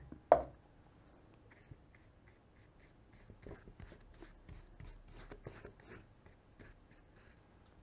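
Paintbrush brushing watered-down acrylic paint onto watercolour paper in a run of short, soft strokes, a few a second, after a single sharp knock near the start as the brush goes into the water pot.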